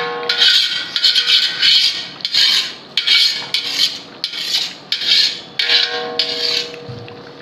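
A metal ladle scraping around the bottom and sides of a large aluminium cooking pot as a thick biryani masala is stirred, in repeated rasping strokes about two a second that stop near the end. The stirring keeps the masala from sticking to the bottom of the pot.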